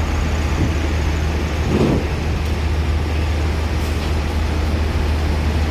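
Diesel engine of a Jetbus-bodied coach running as it moves slowly past, a steady low drone with a brief louder swell about two seconds in.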